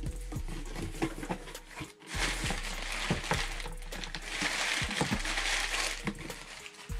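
Packing paper crinkling and rustling as a hand digs through a cardboard box, with small knocks of the box and its contents. The rustle is heaviest from about two seconds in until near the end.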